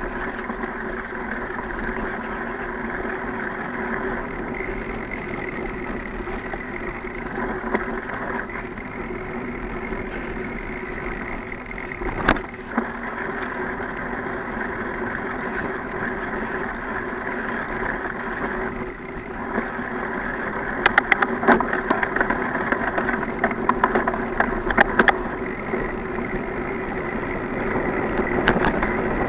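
Bicycle riding on a trail: a steady rolling noise runs throughout, with one sharp click about twelve seconds in and a burst of rattling clicks a little past two-thirds of the way through.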